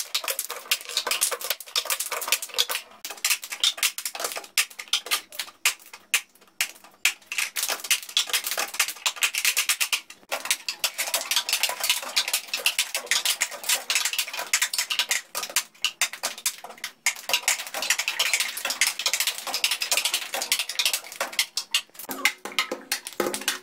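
Group cup percussion: many hands tapping, slapping and setting down plastic cups on tabletops, mixed with hand claps, in a fast continuous rhythm with a few brief pauses.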